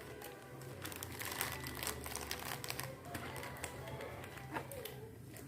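Background music, with light clicks and crinkling of plastic packaging being handled.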